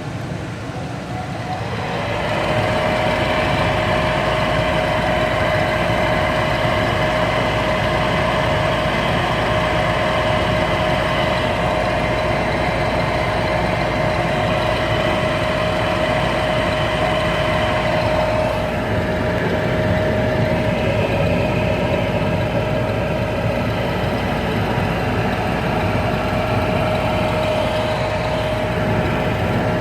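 Lennox G41 gas furnace running after its flame sensor was cleaned. Its motor sound builds up over the first two seconds, then runs steadily with a constant hum, showing the furnace is back up and heating.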